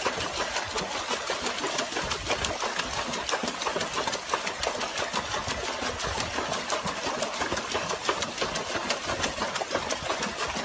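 Water splashing in a plastic tub as a dog paws at it with its front legs, a rapid, continuous churning of many small splashes.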